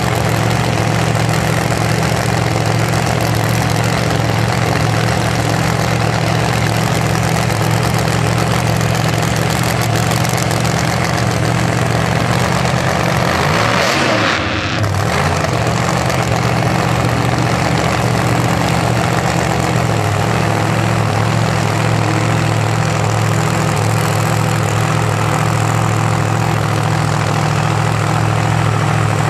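Pro Modified drag car's engine idling loudly and steadily, with a brief dip in level about halfway through.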